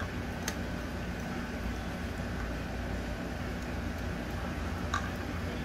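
Steady low background hum with two light clicks, about half a second in and near the end, as a car's fuel rail with its injectors is handled into place on the engine.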